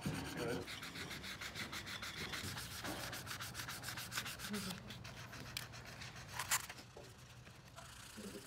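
Solid brass furniture feet being worked by hand to take off machining marks: a metal file scraping along the brass in quick, rhythmic strokes, then the brass blocks rubbed back and forth on sandpaper. A single sharp click comes late on.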